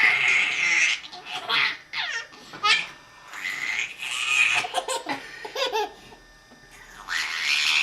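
Baby girl laughing and making high-pitched squealing voice sounds like a little monster, in several bursts with pitch sliding up and down, and a quieter pause about six seconds in.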